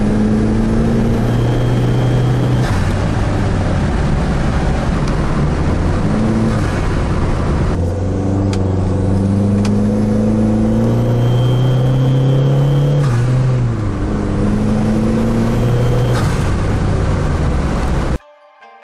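Chrysler PT Cruiser GT's turbocharged 2.4-litre four-cylinder heard from inside the cabin, accelerating hard through the gears: the engine note climbs, drops at each shift and climbs again several times, with a thin high whistle twice as it pulls. The sound cuts off suddenly near the end.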